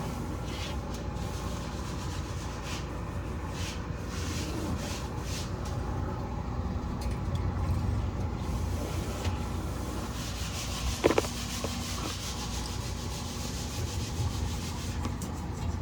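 Microfiber cloth scrubbing and wiping fridge surfaces in irregular rubbing strokes, over a low steady hum. A sharp knock comes about eleven seconds in.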